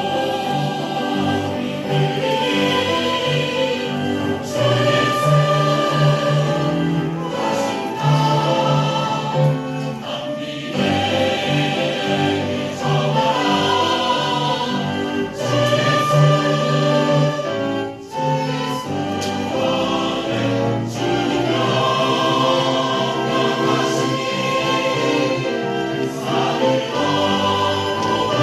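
Church choir singing a sacred choral anthem in several parts.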